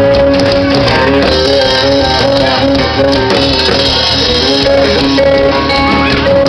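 Live band playing loudly: guitar over a drum kit, with a repeating melodic line and steady percussion.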